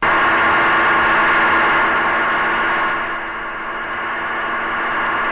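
Precision geared transmission, a speed increaser driving a centrifugal compressor, running under power: a steady, loud gear whine made of many tones at once over a rushing noise. It cuts in suddenly at the start.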